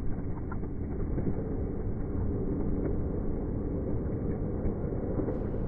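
Muffled, low rumble of sea water washing and splashing around a camera held at the waterline, dull and without any high sounds.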